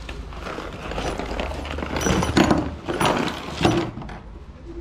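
Old metal bicycle drivetrain parts (a freewheel cluster, derailleurs and a chain) clattering out of a cardboard box onto a wooden table, with a few loud knocks in the second half.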